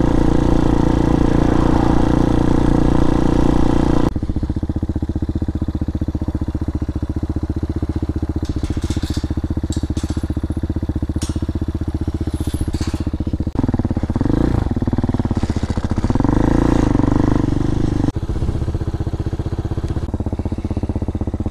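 Hawk 250 DLX dual-sport motorcycle's fuel-injected single-cylinder engine running. It pulls under way for the first few seconds, then idles steadily. In the middle its revs rise and fall before it settles back to idle.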